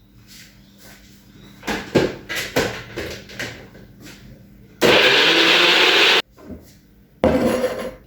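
Kitchen blender run in two short pulses, about a second and a half and then under a second, each cutting off sharply, blending grated coconut for fresh coconut milk. Before the pulses come several knocks and clatters of handling.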